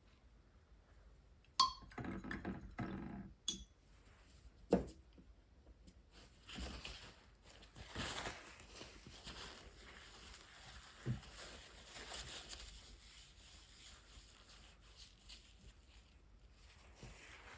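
A few sharp clicks and knocks in the first seconds, then the faint, uneven scratchy hiss of brush-tip marker strokes on watercolour paper.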